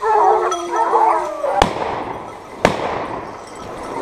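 Hunting hounds baying, then two gunshots about a second apart, each with an echoing tail, fired at wild boar flushed from cover.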